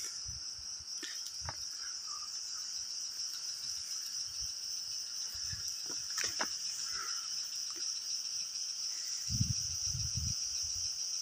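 Steady, high-pitched insect chorus, with a brief low rumble about nine to ten seconds in.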